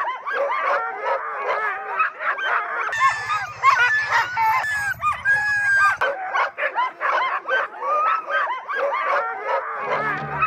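A pack of sled dogs barking together, many short calls overlapping without pause. From about three to six seconds in a low buzzing rumble sounds under them, and music begins at the very end.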